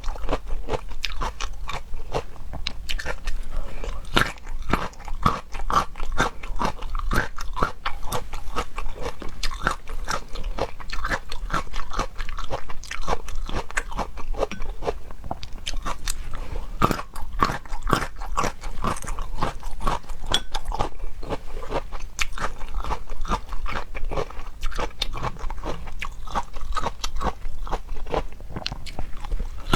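Someone eating crunchy food: a steady run of crisp bites and crunching chews, many crackles a second.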